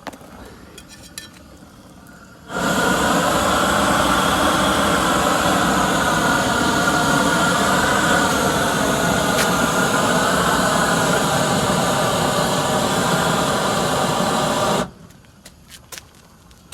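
Heat-welding tool for a torch-down roofing membrane running: a loud, steady blast of hiss with a steady pitched whine in it, starting suddenly a few seconds in and cutting off suddenly near the end.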